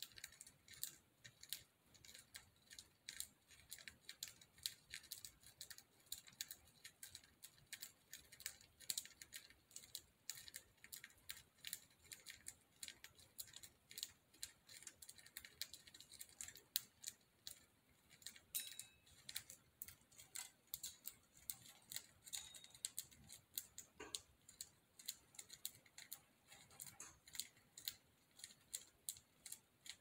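Budgies cracking and husking millet seeds off a hand-held millet spray: a fast, irregular patter of faint small clicks and cracks.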